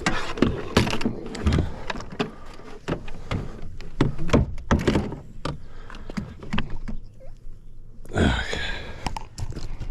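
Irregular knocks, clicks and thunks of fishing gear being handled against a kayak while a landed bass is being measured, with a short scraping rush about eight seconds in.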